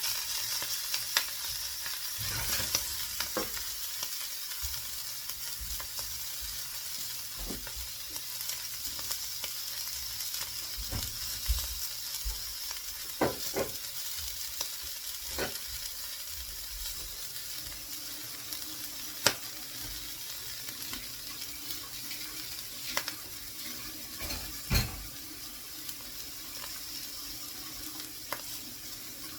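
Food sizzling in a frying pan, with a steady high hiss and scattered sharp clicks and taps.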